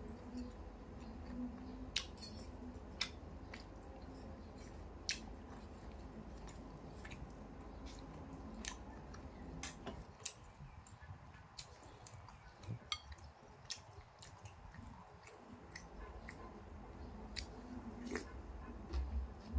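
A person eating noodle soup: scattered sharp clicks and soft chewing sounds over a faint low hum.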